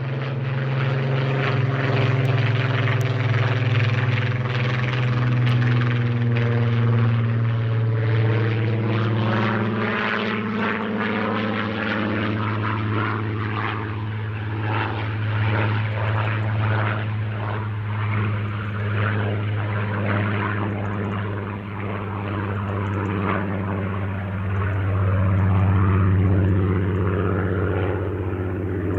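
A Supermarine Spitfire's V12 piston engine and propeller running hard through aerobatic manoeuvres overhead. The engine note holds loud and steady while its pitch slides up and down as the aircraft climbs, rolls and dives.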